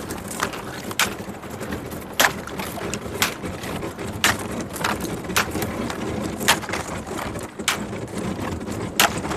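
Thin ice breaking against a small boat, with sharp cracks or knocks about once a second over a steady low rumble.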